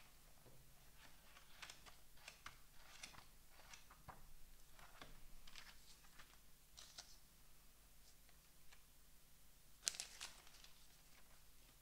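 Faint paper rustling: short swishes and crinkles as the pages of a large book are turned and handled, with one sharper, louder rustle near the end.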